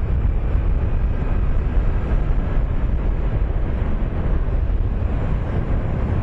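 Wind rumbling steadily over the microphone of a 2008 Honda Nighthawk 250 motorcycle riding at road speed, with the bike's engine running underneath.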